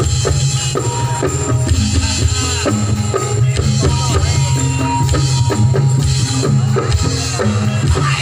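Javanese jaranan gamelan accompaniment: drums beating a steady, driving rhythm over held pitched notes from the ensemble.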